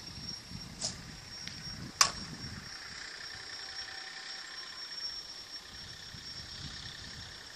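A composite slowpitch softball bat hits a softball once, a single sharp crack about two seconds in, with a fainter click about a second before it.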